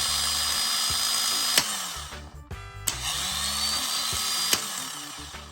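Starter motor from a MK3 Toyota Supra, bench-tested on jumper cables, spinning at speed twice. Each run ends in a sharp click as the contact is broken, and the motor winds down.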